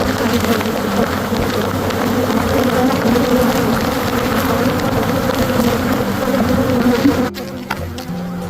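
A mass of honey bees buzzing loudly around an opened hive, a dense, steady hum. About seven seconds in, the sound drops suddenly to a quieter level.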